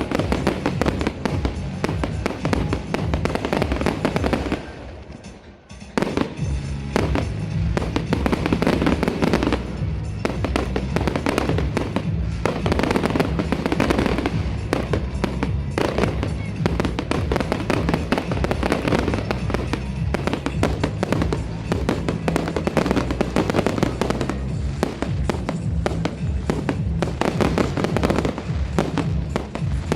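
Fireworks display: a dense, continuous barrage of bangs and crackles, with a brief lull about five seconds in. Music plays underneath.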